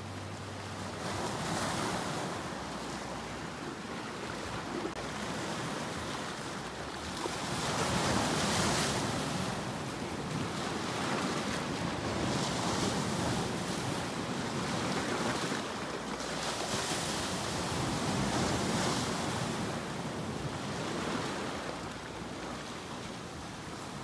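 Sea surf washing in over shoreline rocks, swelling and ebbing every four or five seconds as waves break and draw back.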